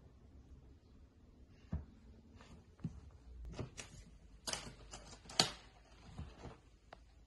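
Aluminium makeup case being handled and its metal clasp latch flipped open: a string of sharp clicks and clacks, the loudest about five seconds in.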